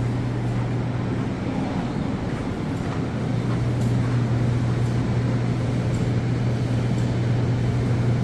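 Steady low machine hum with a rushing noise behind it, unchanging and fairly loud.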